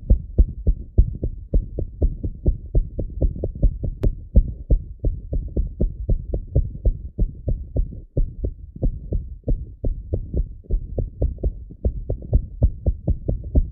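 Recorded heart sounds in atrial fibrillation: a fast, uneven run of short thuds, with the first heart sound (S1) changing in loudness and timing from beat to beat.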